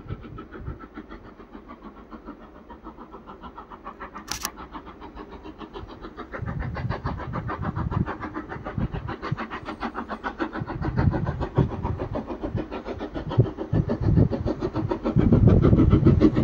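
Taff Vale Railway No. 85 steam locomotive working hard uphill with a train: a fast, even rhythm of exhaust beats that grows louder as it approaches.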